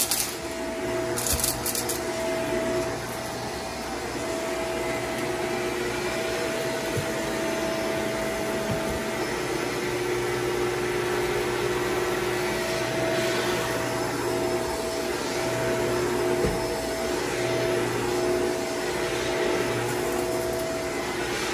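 Corded upright vacuum cleaner running steadily while pushed over carpet, its motor hum wavering slightly as it moves. A few faint ticks sound along the way.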